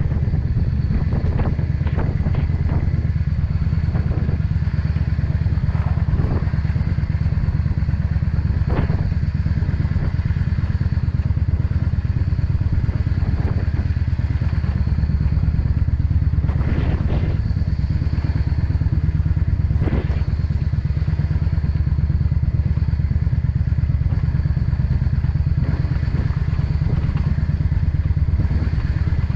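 Yamaha XVS 650 Drag Star Classic's V-twin engine running steadily under way, with a few short knocks and clatter scattered through.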